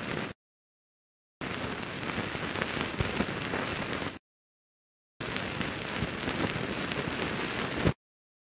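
Crackling hiss of an old film's soundtrack, an even rain-like noise peppered with small clicks. It breaks off into dead silence three times for about a second each, coming back twice.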